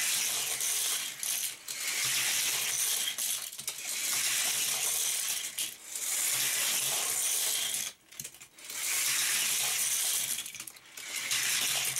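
Die-cast Hot Wheels cars rolling fast on plastic track and around a loop, a continuous rattling whir of small wheels that breaks off briefly several times.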